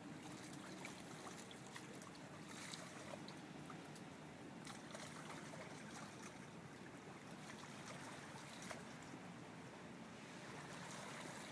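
Hudson River water lapping and splashing gently, a steady low wash with scattered small splashes.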